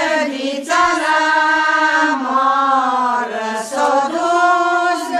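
A woman's voice singing a slow, unaccompanied melody in long held notes, phrase after phrase with short breaths between.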